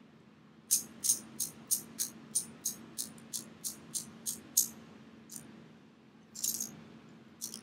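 Ratcheting mechanism of Craftsman hose pinch-off pliers clicking notch by notch as the jaws are closed: about a dozen sharp metallic clicks, roughly three a second, then a short rattle of clicks about six seconds in.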